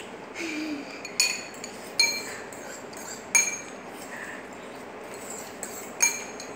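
Metal forks and spoons clinking against ceramic bowls during hurried eating: several sharp, ringing clinks at irregular intervals, about four of them loud.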